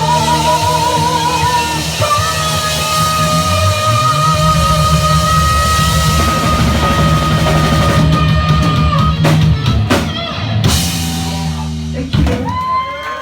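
Live heavy rock band playing: distorted guitars, bass and drums under a long held high note, probably a singer or a lead guitar. Near the end the playing breaks off into a final ringing chord.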